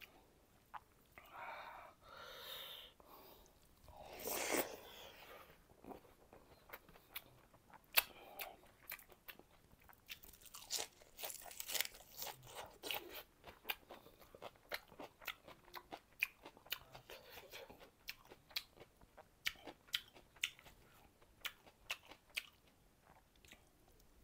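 Close-miked chewing of fried fish curry and rice eaten by hand, with many short crunches and mouth smacks.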